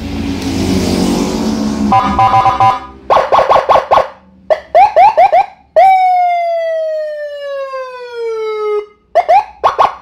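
Custom Senken police-escort siren, a 45-watt module through a 15-watt horn speaker, switched through its tones. It gives a hissing burst, then fast rising chirps and yelps. About six seconds in comes one long tone gliding down for some three seconds, cut off abruptly, and quick chirps follow near the end.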